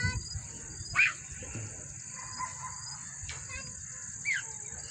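Outdoor dusk ambience: birds giving a few short, downward-sliding calls over a steady high-pitched drone of insects, with a low rumble of wind on the microphone.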